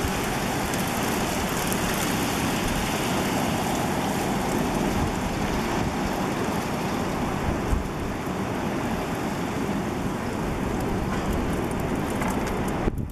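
Steady rushing noise of a wintry thunderstorm shower, precipitation falling with a constant hiss.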